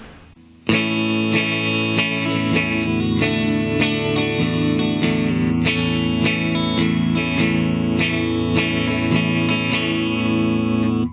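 2018 Epiphone Les Paul SL electric guitar played clean through a Fender Champion 40 amp on both pickups, strumming a chord progression. The chords start about a second in and stop abruptly just before the end.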